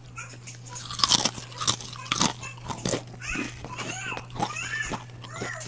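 Dry Mamee Monster snack noodles crunching as they are bitten and chewed, with the loudest sharp crunches between one and three seconds in. After that comes lighter crackling as the dry noodle block is broken apart by hand.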